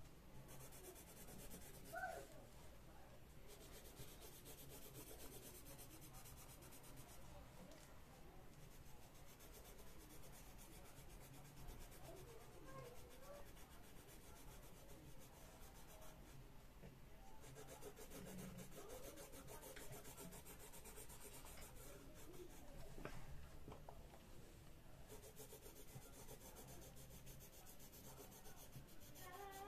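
Colored pencil scratching faintly across a coloring book page in runs of quick strokes, with short pauses between them.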